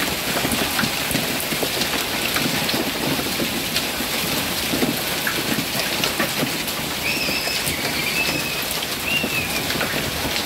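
Heavy hailstorm: large hailstones pelting down with rain, a dense, steady patter of many small impacts. A short, high wavering call sounds about seven seconds in.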